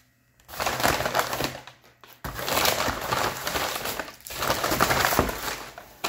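Paper takeout bag and food wrappers rustling and crinkling as items are pulled out. The rustling comes in two long stretches, split by a short pause about two seconds in.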